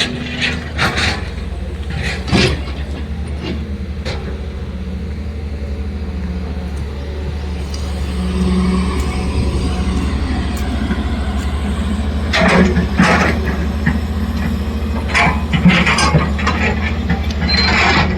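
An engine running steadily with a low hum, with clattering knocks now and then: a few near the start, and clusters about twelve and fifteen seconds in and again near the end.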